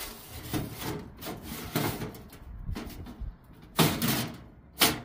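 Small pebbles on top of a metal stove scraped and rubbed by hand as they are spread flat, in a series of gritty strokes, with two louder scrapes near the end.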